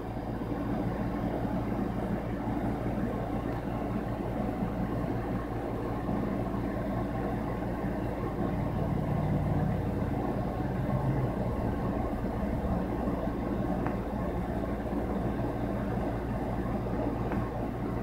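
Steady low engine rumble with a droning hum that holds constant throughout; no bird calls stand out.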